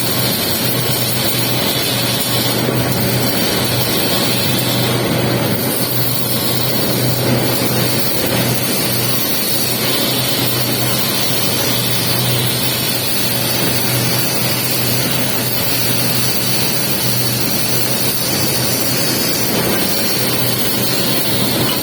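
Welding arc crackling steadily as the capping pass is laid on a pipe joint, over a steady low hum.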